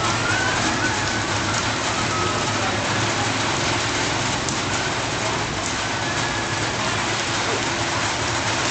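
Thunderstorm rain pouring down steadily.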